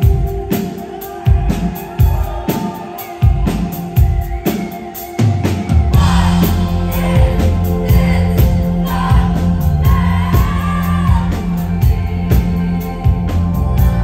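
Live rock band playing, heard from the audience: a steady drum beat, with the bass and full band filling in about six seconds in and a woman singing over it.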